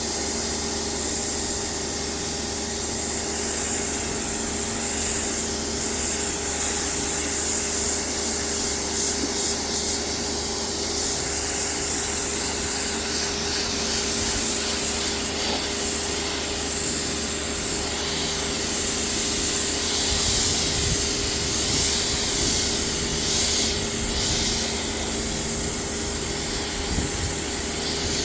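Pressure washer spraying water onto degreased car carpets, a steady hiss of the jet over the even hum of the washer's motor.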